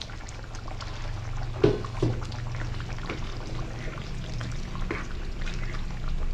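Cooked dal going into a pan of thick sambar and being stirred in with a metal spoon: wet sloshing and scraping. There are two sharp knocks of the spoon a little under two seconds in, over a steady low hum.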